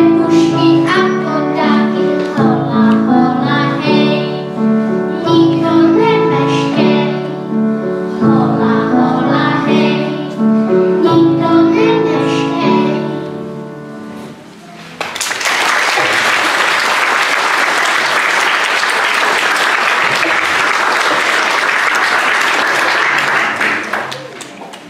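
Children singing a song with instrumental accompaniment, which ends and fades about 14 seconds in. An audience then applauds for about nine seconds, dying away near the end.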